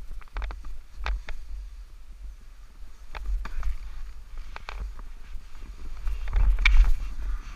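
Snowboard sliding down a groomed slope: the board hissing and scraping over the snow, with wind buffeting the action camera's microphone and scattered sharp clicks. A louder scrape comes near the end.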